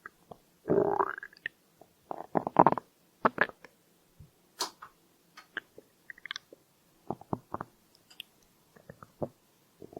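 Human stomach gurgling, recorded close: a longer rumbling gurgle about a second in, then a run of short, irregular pops and squelches. These are the hunger sounds of an empty stomach.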